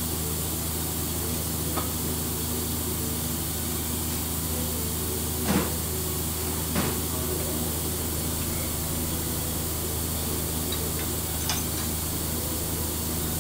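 Vertical milling machine running with a steady hum while boring out a worn axle ring to make its hole true again. Two sharper knocks come around the middle, with a couple of lighter clicks before and after.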